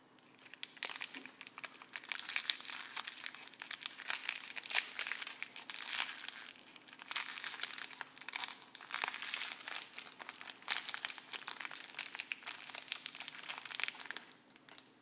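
Thin clear plastic wrapper of a Kinder Surprise toy crinkling as it is torn open by hand and a small plastic figure is worked out of it. The crinkling comes in bursts with short pauses and stops about a second before the end.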